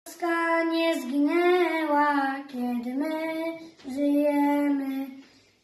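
A young boy singing solo in a single clear voice, in long held notes that slide between pitches, in three phrases with short breath breaks.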